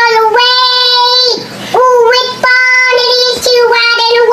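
A child singing in a high voice, holding long notes of about a second each at nearly the same pitch, with short breaks between them.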